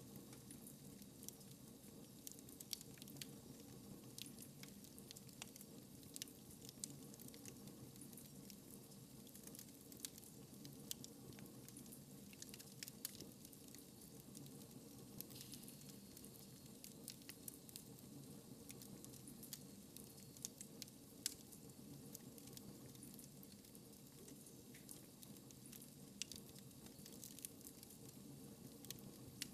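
Faint fire crackling in a fireplace: irregular small pops and snaps, several a second at random, over a low steady background sound.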